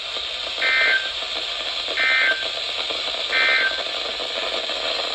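Three short bursts of Emergency Alert System SAME digital data tones, about 1.3 s apart, over steady radio hiss. These are the end-of-message code that closes the warning.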